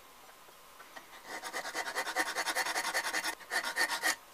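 Flat metal file rasping back and forth across a steel screwdriver shaft clamped in a bench vise, filing flats on it. A quick run of scraping strokes starts about a second in, with a brief pause near the end.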